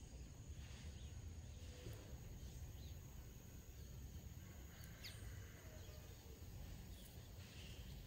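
Quiet outdoor ambience: a steady high insect drone over a low rumble, with a few faint, short bird chirps, one sliding down in pitch about five seconds in.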